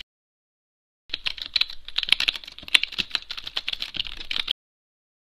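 Typing on a computer keyboard: a quick, irregular run of key clicks starting about a second in and stopping abruptly some three and a half seconds later.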